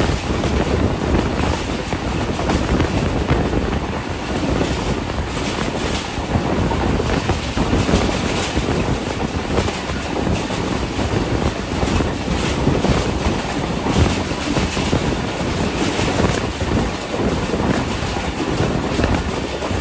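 Passenger train coach running at speed: wheels rumbling and clattering on the rails, with a steady rush of wind across the microphone.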